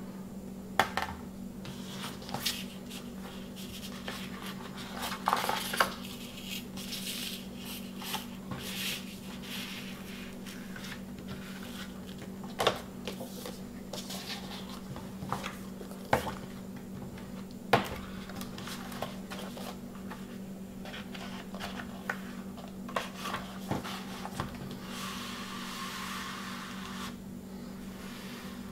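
A 180 g translucent yellow vinyl LP being handled with its paper inner sleeve and cardboard jacket: paper rustling and sliding, with a few sharp taps, and a longer sliding hiss near the end as the sleeve goes into the jacket. A steady low hum runs underneath.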